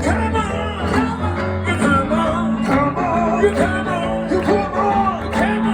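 Music: a song with acoustic guitar and singing.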